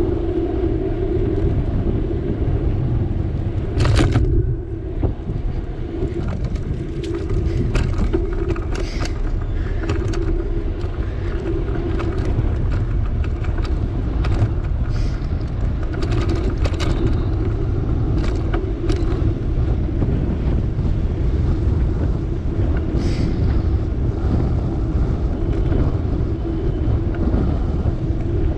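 Bicycle riding along: steady wind and tyre rumble on the bike-mounted camera, with frequent small rattles and knocks from bumps in the road and paving, the loudest about four seconds in.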